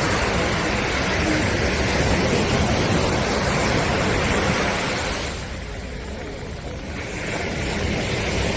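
Sea surf washing onto a beach: a steady rush of waves that eases off a little past the middle and then builds again as the next wave comes in.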